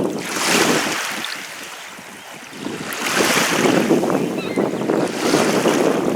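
Wind blowing over the microphone in gusts, rising and falling, with a lull about two seconds in.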